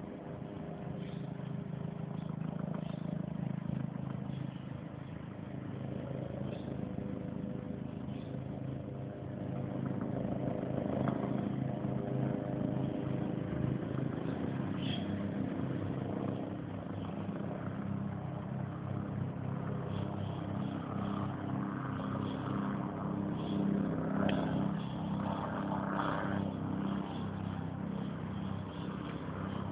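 Steady low engine hum of a vehicle, with faint scattered higher sounds over it.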